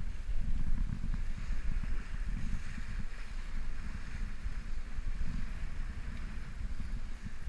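Strong wind buffeting the microphone in gusts, over the steady hiss and rush of water streaming along the hull of a Cal 40 sailboat under way.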